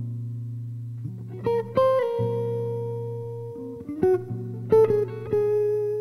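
Slow instrumental guitar music: a low note rings from the start, and single higher notes are plucked about a second and a half in and again around four to five seconds in, each left to ring out.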